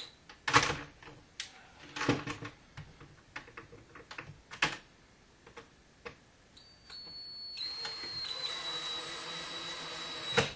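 A few sharp knocks and clicks, then, from a little past halfway, a cordless drill runs for about four seconds, a high whine over a steady whir, driving a screw into a wooden shutter frame; it stops near the end with a knock.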